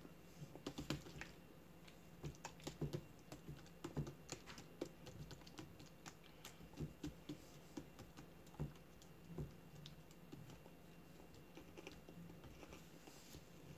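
Faint, irregular light clicks and taps from hands handling a plastic drink bottle, thinning out after about ten seconds.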